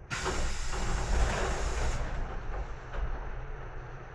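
Sudden loud rush of compressed air venting from a standing 811 series electric train, starting just after the start and stopping abruptly after about two seconds, with a low rumble that fades after it.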